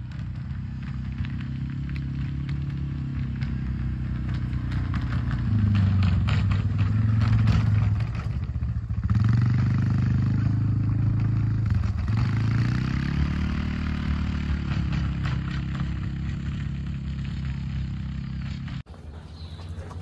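Quad bike (ATV) engine pulling a spreader across a paddock, coming closer and passing by. It grows louder to a peak about six to ten seconds in, with the revs dropping briefly twice, then fades away. It cuts off abruptly just before the end.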